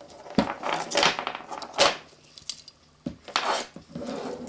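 Metal clinks, clicks and scrapes of a hand plier-type hole punch and a steel Ansonia kitchen clock mainspring being handled just after a hole has been punched through the spring. The sharpest clink comes about two seconds in.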